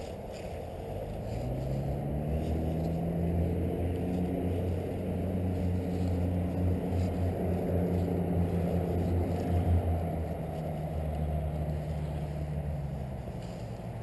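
Engine of a passing motor vehicle: a steady engine note swells in, rising in pitch at first, holds, then drops lower and fades away. A steady low rushing noise runs underneath.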